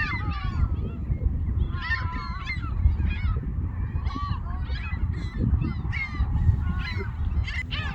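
A flock of gulls calling: many short, overlapping cries, some gliding in pitch, over a steady low rumble.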